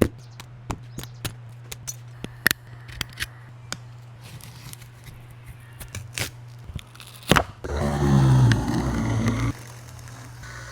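Repair tools clicking and scraping against a Redmi 13C smartphone's housing and screen during a screen replacement, over a steady low hum. About eight seconds in, a louder whirring sound falling in pitch lasts about two seconds.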